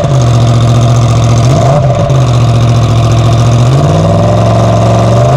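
Yamaha MT-10's crossplane inline-four running loud with its stock exhaust canister removed, idling with short throttle blips at the start and about two seconds in, then revs climbing gradually near the end.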